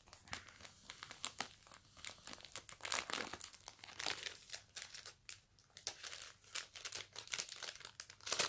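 Crinkly packaging being handled and unwrapped: a run of short, irregular crackles and rustles with brief pauses between them.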